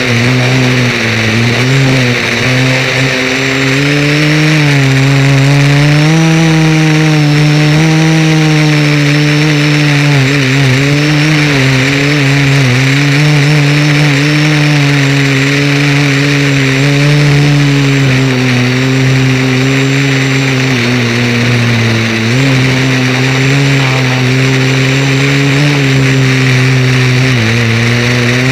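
Radio-controlled model aircraft's motor and spinning blades, a steady pitched drone in flight. The pitch rises and falls gently with the throttle and dips briefly a few times.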